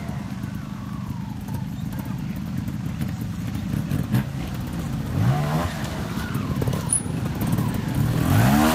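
Trials motorcycle engine ticking over low, then blipped with a rising rev about five seconds in and revved hard in rising and falling swells near the end as the bike climbs the rocks.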